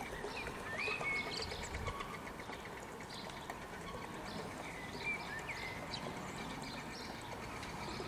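Birds chirping, with a few short rising and falling whistled calls about a second in and again about five seconds in, over a faint steady outdoor hiss.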